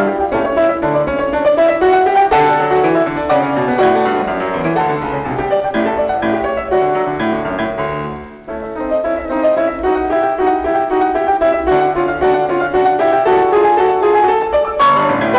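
Classical keyboard music, a quick stream of many short notes, with a brief dip about eight seconds in before it carries on.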